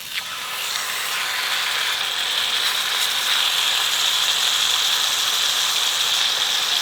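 Frying in olive oil in a hot skillet on a propane bottle-top burner: a steady sizzling hiss that starts suddenly and builds over the first couple of seconds, with a few faint crackles.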